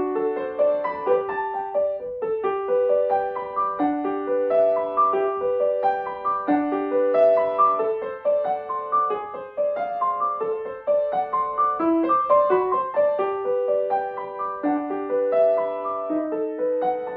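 Grand piano played solo: a flowing piece of broken-chord figures in the middle register, notes overlapping and ringing on.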